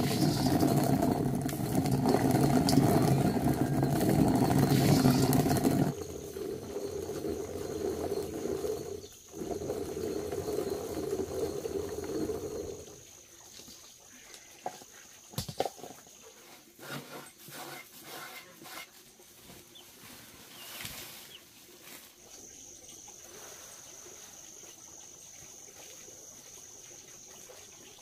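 Hand-turned stone mill grinding dried corn kernels: a rough, grating rumble, loud for the first six seconds and quieter after a cut until about thirteen seconds in. After that, only scattered light knocks and a thin steady high tone.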